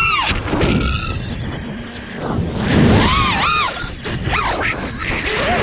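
Brushless motors and propellers of a 6S FPV freestyle quadcopter, heard from its onboard camera: the whine drops steeply as the throttle is cut at the start, then swoops up and down in pitch with throttle punches through a flip. Wind rushes over the microphone.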